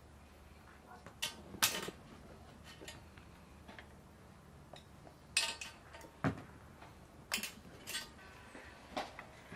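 Hands sewing a raw whole chicken shut with a needle and thread on a metal tray: a few short, sharp clicks and rustles, scattered a second or so apart.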